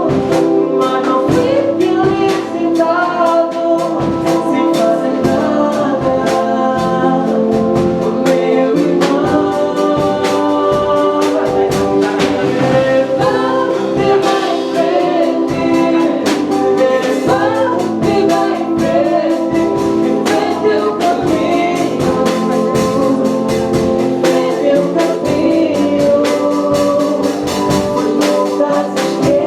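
Band music with a lead singer over a steady percussion beat.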